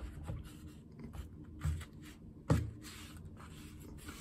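Rubber grout float rubbing and scraping unsanded grout into tile joints, faint, with a few light knocks of the float against the tile. The sharpest knock comes about two and a half seconds in.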